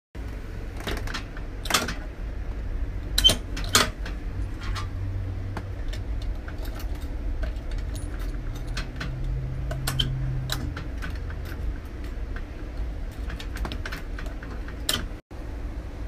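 Metal clicks and light rattling of a lock-picking tool working in the override key cylinder of an electronic safe, with a few louder clicks in the first four seconds and another near the end. A steady low hum runs underneath.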